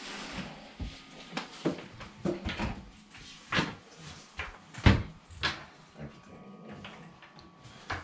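Kitchen wall-cabinet doors being opened and shut by hand: a series of knocks and clicks, the loudest about five seconds in.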